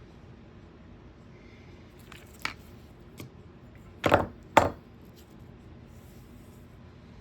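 Hand tools being handled and set down on a workbench: a few short knocks and clatters, the loudest two close together about four seconds in.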